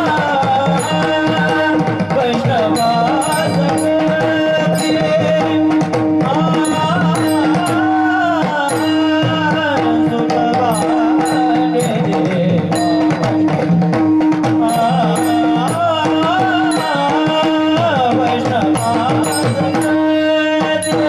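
Marathi Warkari devotional bhajan: a male voice sings a gliding melody over a steady drone, kept in rhythm by small brass hand cymbals (taal) struck in a regular beat and a hand drum.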